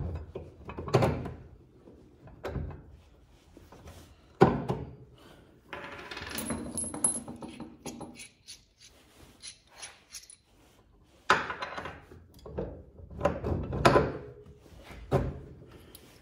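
Steel mounting bolts clinking and a Central Forge 6-inch swivel bench vise clunking and scraping on a wooden workbench top while it is worked down over the bolts. Irregular metal knocks, with a sharp clank about four seconds in and a rattling scrape a couple of seconds later.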